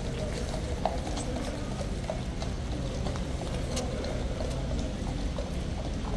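Steady watery hiss of rain and a wet street, with a few scattered sharp clops from a horse's hooves on the wet paving.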